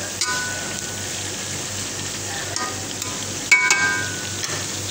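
Sliced onions and bell peppers sizzling steadily as they are stir-fried in a pan. A metal spoon clinks against the pan twice, lightly about a quarter second in and more loudly about three and a half seconds in.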